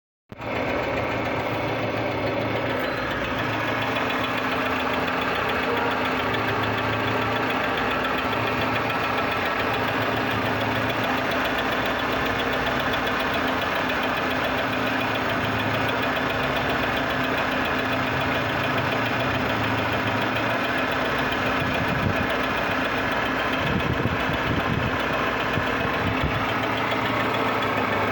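Engine running steadily with a strange noise, which the owner takes for the sign of some defect. A low hum swells and fades about every two seconds, with a few sharper knocks near the end.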